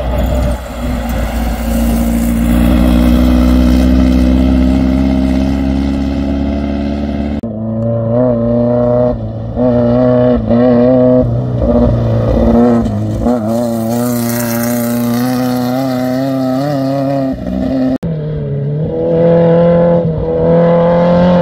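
Air-cooled VW flat-four engines of Baja Bug off-road race cars running hard on a gravel course. The revs climb, then waver up and down, then climb again. The sound changes abruptly about seven seconds in and again near the end.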